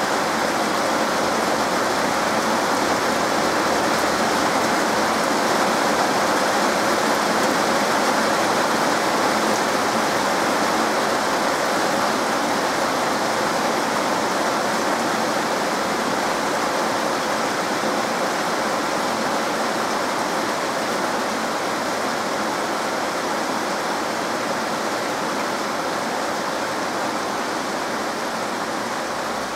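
Heavy rain pouring down: a dense, steady hiss of a downpour falling on trees and roofs, easing slightly toward the end.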